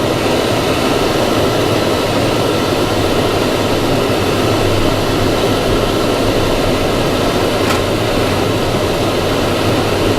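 Steady rushing noise of a vehicle driving, heard from inside the cabin, with one faint click near the end.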